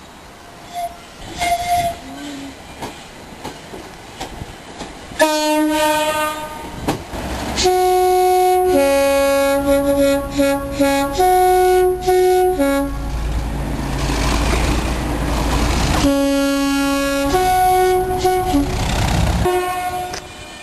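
Locomotive two-tone horn: a short blast about five seconds in, then a long run of alternating high and low notes. A loud low train rumble follows, then more alternating high-low blasts near the end.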